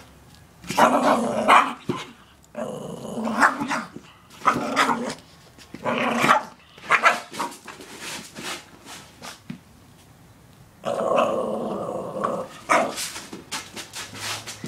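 A small dog growling and snarling in repeated bursts of up to a second and a half, separated by short pauses. It is play-growling while it wrestles a rubber ball during fetch.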